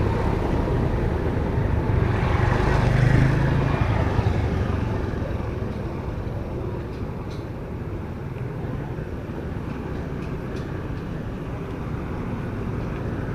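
Street traffic of cars and motorbikes: a vehicle passes close by about three seconds in, then a quieter, steady hum of traffic.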